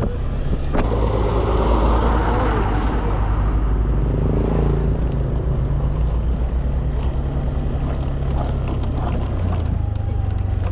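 Honda Scoopy motor scooter's engine running steadily under way, mixed with wind and road rush.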